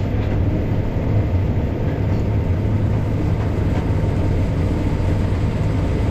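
Case IH 7230 combine running steadily while harvesting corn: an even low drone with no change in pace.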